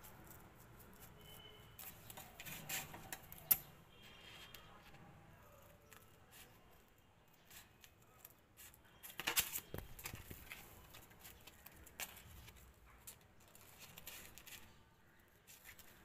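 Scissors cutting a sheet of glitter paper, with the paper crackling as it is handled: faint scattered snips, a sharp click about three and a half seconds in, and a louder run of cuts around nine seconds in.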